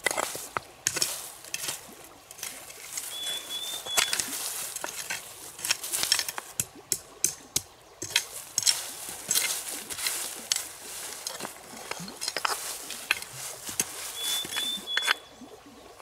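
Close, irregular rustling and handling noises with scattered light clicks and clinks, and twice a brief, steady high peep.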